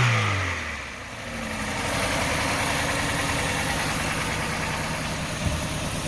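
Chevy 2.2-litre four-cylinder engine from a 1995 Cavalier, newly installed in a Gehl skid steer loader, dropping back from revving and settling into a steady idle about a second in.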